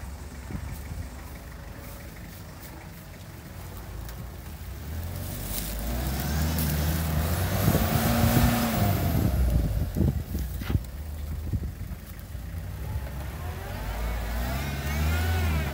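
Off-road 4x4's engine working at low revs as it crawls through deep mud, revving up and dropping back about halfway through and rising again near the end. There are a few sharp knocks around the middle.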